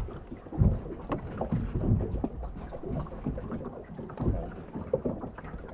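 Small waves lapping and sloshing at the waterline in irregular soft splashes and low thuds, heard from a camera at the water surface, with some wind on the microphone.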